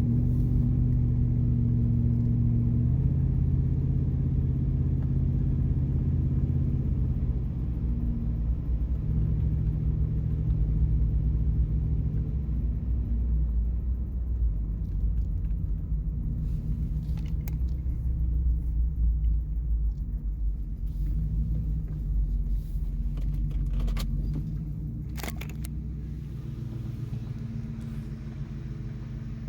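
A car being driven: a steady low engine and road rumble, its pitch stepping a couple of times in the first ten seconds. A few light clicks or rattles come near the end, and the rumble gets quieter after about 24 seconds, as if the car is slowing.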